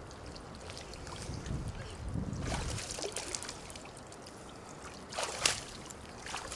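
Icy lake water sloshing and splashing around a swimmer climbing out of a hole in the ice up a metal ladder, with small splashes and drips as the body leaves the water. A louder, sharper splash comes about five seconds in.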